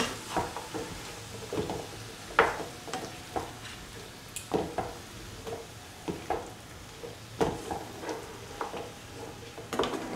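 A spatula stirring and turning bottle gourd pieces in a hot pan, in irregular scrapes and knocks against the pan, with a light sizzle of frying underneath. The sharpest knock comes about two and a half seconds in.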